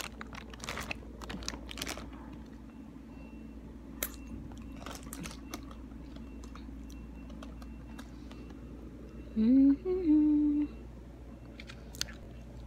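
Clear plastic snack bags rustling and crinkling under a hand, with scattered crackles in the first half. About nine seconds in, a short hummed voice rises in pitch and then holds; this is the loudest sound.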